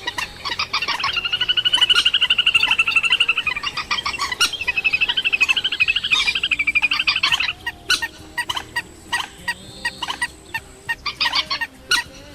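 Swamphen calling: a long, rapid, wavering rattle of pulsed notes from about one second in until about seven and a half seconds, then scattered short clicks and brief notes.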